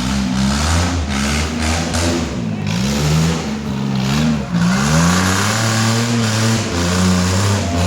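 Off-road vehicle engine revving under load. The pitch drops and climbs back twice, then holds at steady high revs over the last few seconds.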